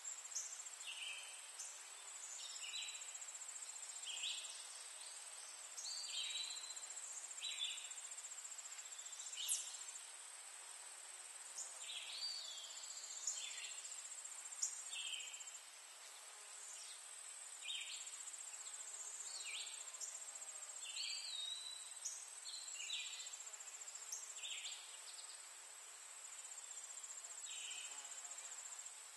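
Garden ambience: a steady, high-pitched trill of singing insects, with short high chirps scattered through it roughly once a second.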